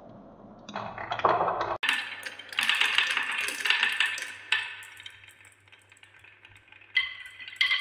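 Glass marbles rolling and clattering together around a wooden spiral track and along a wavy wooden chute, a dense rattle of many small clicks that thins out past the middle. A ringing clinking with steady high tones starts near the end.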